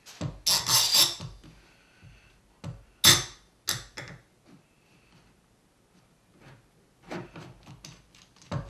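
A steel Harbor Freight F-clamp being fitted onto a pine block. A cluster of metal clacks comes as its sliding jaw is moved along the bar, then two sharp knocks about three seconds in. Near the end there is a run of small clicks as the handle is turned to snug it.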